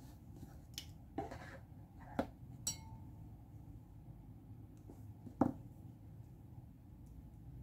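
Small knocks and clinks of a ruler, a pen and a glass cup being moved on a desk: scattered light taps, one short ringing clink a little under three seconds in, and the loudest knock about five and a half seconds in.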